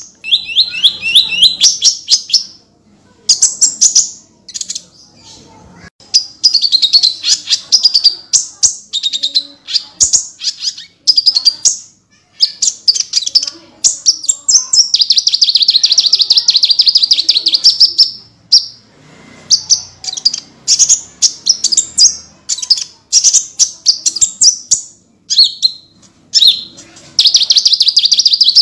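Brown-throated sunbird (the 'konin', kolibri ninja, of Indonesian bird-keepers) singing in fast bursts of sharp, high-pitched chattering notes and trills, some runs lasting several seconds, broken by short pauses.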